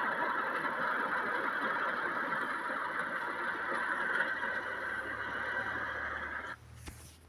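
Vehicle moving on a dirt road, heard from inside the cab with the window open: steady road and running noise that cuts off abruptly about six and a half seconds in, leaving a faint low hum.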